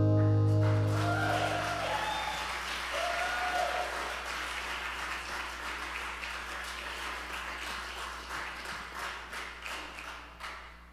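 Last chord of an acoustic guitar ringing out and fading over about two seconds, as a small audience breaks into applause with a few cheers; the clapping thins out toward the end.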